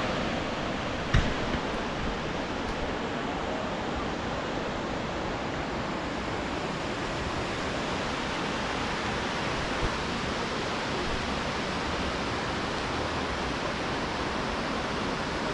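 Steady, even roar of Jog Falls, a large waterfall dropping into its gorge. A brief knock sounds about a second in.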